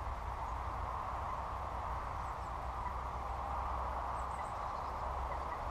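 Steady outdoor background noise: an even hiss with a low rumble of wind on the microphone, and a few faint high chirps about two and four seconds in.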